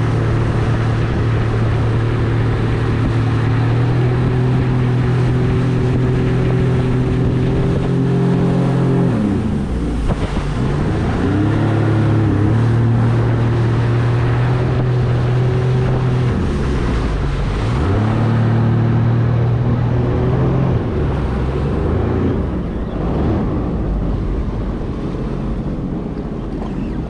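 Sea-Doo personal watercraft engine running at a steady cruise. Its note drops and climbs back twice as the throttle is eased off and reopened, then settles lower as the craft slows near the end. Wind and spray hiss on the microphone throughout.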